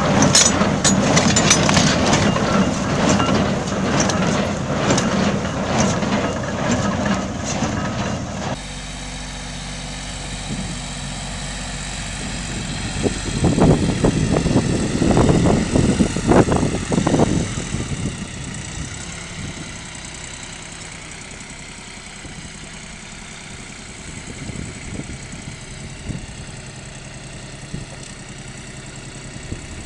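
A red straw baler's mechanism clattering rapidly as it takes in straw, then, after a cut about eight seconds in, a compact farm tractor's engine running steadily as it pulls a rotary tiller, louder for a few seconds in the middle.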